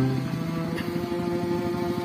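Background music of held, sustained notes, with a small engine running underneath in an even pulse that grows more prominent toward the end.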